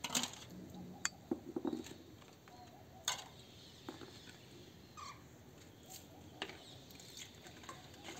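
Scattered sharp clicks and taps from a small container being cleaned and handled, the loudest near the start, about a second in and about three seconds in. Faint chirps of caged birds are heard between them.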